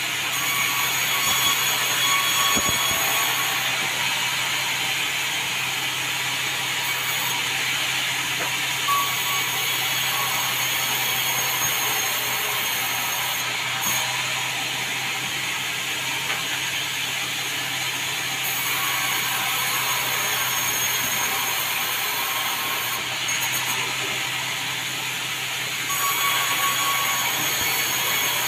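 Sawmill bandsaw running steadily and sawing meranti timber, a continuous mechanical noise over a low hum, with the hiss of the cut growing louder in stretches.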